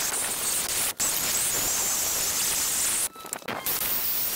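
Makita cordless drill spinning a wire brush against the rusty steel housing of an electric motor, a steady harsh hiss of bristles scouring off rust. It breaks off for a moment about a second in and for about half a second near three seconds.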